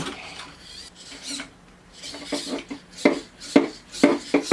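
Remote-controlled robot arms clattering, a run of irregular knocks, clicks and scrapes as the grippers work against hard objects, busier and louder in the second half.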